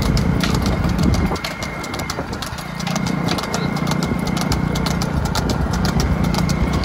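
Bull buffalo's hooves clopping rapidly on a hard road, with an engine running steadily underneath.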